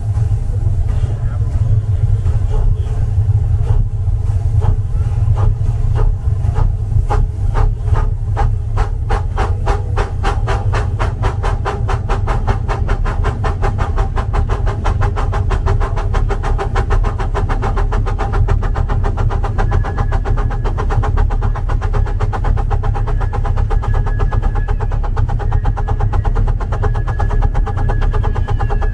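Small live-steam locomotive chuffing as it pulls away, the exhaust beats quickening over the first dozen seconds into a fast steady beat as it gets up speed, over a steady low rumble. A thin high squeal comes and goes in the second half.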